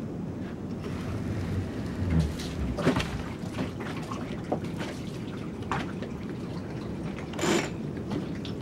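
Water running and splashing steadily from the open bung hole of a hoisted dinghy, the plug left out, with a low rumble of wind on the microphone and a few small knocks.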